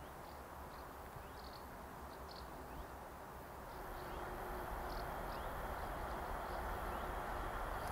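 Quiet open-air background with a steady low hiss and rumble and scattered faint short chirps; the background grows a little louder about four seconds in.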